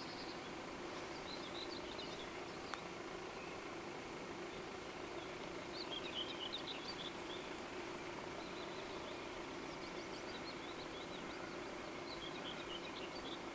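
Small birds twittering in short clusters of chirps, four times, over a faint steady hum, with one sharp click a few seconds in.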